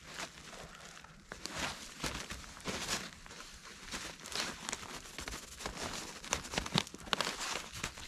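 Irregular crinkling and rustling of a nylon tarp shelter being handled at ground level, mixed with snow crunching.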